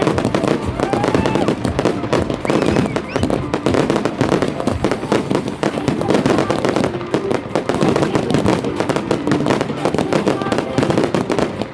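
Fireworks display firing continuously: a dense, rapid run of bangs and crackles without a break, with people's voices mixed in.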